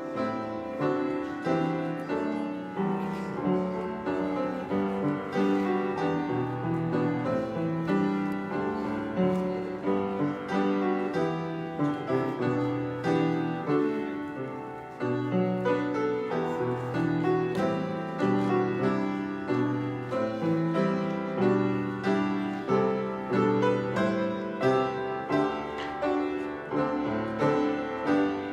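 Piano playing a prelude: a steady flow of chords and melody notes with a brief pause about halfway through.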